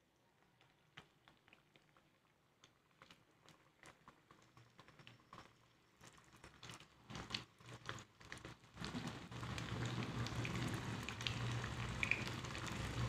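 Batter-coated prawns deep-frying in hot oil: scattered faint crackles that thicken into a steady, louder sizzle about nine seconds in.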